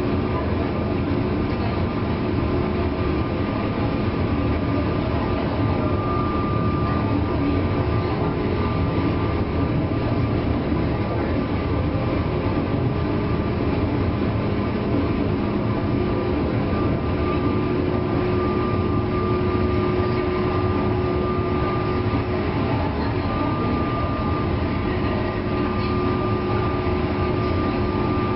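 Cabin running noise of a JR East 201 series electric train, heard in motor car MoHa 201-254 directly above its armature chopper control unit: a steady rumble of the train under way with steady whining tones from the chopper equipment that swell and fade a little.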